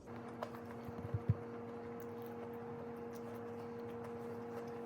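A steady low hum made of two even tones, with a few soft knocks about a second in.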